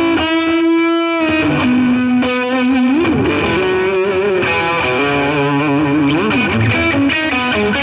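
Electric guitar playing a rock lead line, its notes bending and wavering in pitch.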